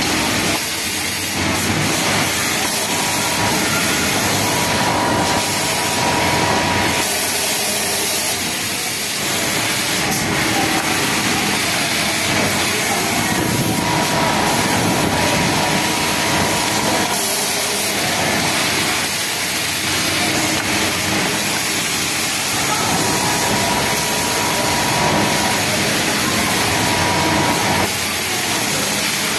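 Pegasus WT600 flatlock industrial sewing machine stitching a topstitch seam. Its steady running tone comes and goes in spells of a few seconds, over a constant hiss.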